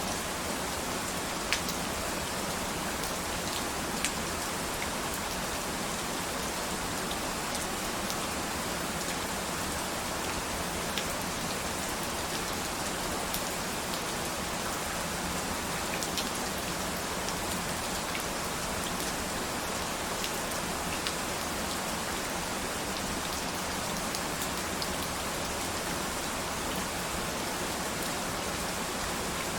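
Steady rain falling, a constant hiss with scattered sharp drops ticking on a surface.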